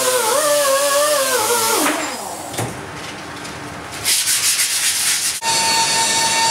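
Rotary grinder with a small abrasive wheel grinding a bronze casting: a whine that wavers in pitch, then quieter scratchy rubbing. About five seconds in it changes abruptly to the steady hiss and hum of a welding arc.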